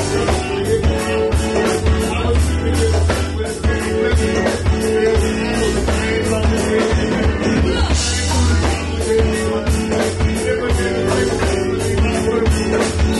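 Live band playing with several vocalists singing over electric guitar and a drum kit, at a steady beat.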